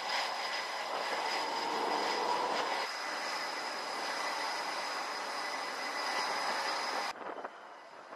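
Jet aircraft engines running on a carrier flight deck: a steady rushing noise with a high turbine whine. It cuts off abruptly about seven seconds in, leaving a quieter hiss.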